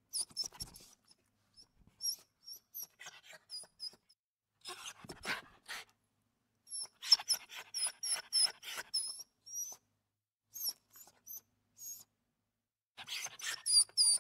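Puppies yapping with short, high-pitched squeaky calls, coming in clusters with brief pauses between them.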